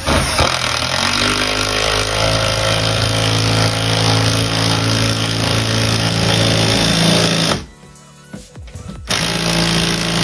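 Milwaukee cordless impact driver with a half-inch socket hammering a lag bolt through a TV mount bracket into a wood stud. It runs in one long burst of about seven and a half seconds, stops for about a second and a half, then starts again.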